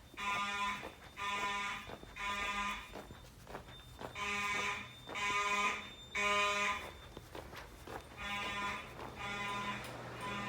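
Simplex 4903-9219 fire alarm horns sounding a buzzy evacuation tone in the temporal-three pattern: three short blasts, a pause, repeated three times during a system test.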